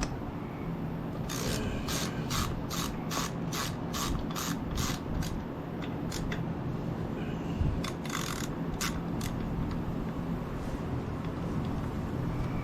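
Socket ratchet clicking in quick strokes as the brake caliper bracket bolts are run in, from about a second in to about five seconds and again briefly around eight seconds. A steady low hum from a fan runs underneath.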